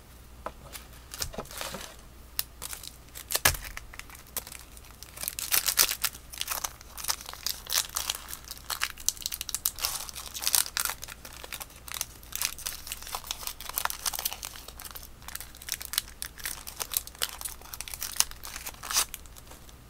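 Foil wrapper of a 2012 Topps baseball card pack crinkling and tearing as it is opened: a dense run of sharp crackles.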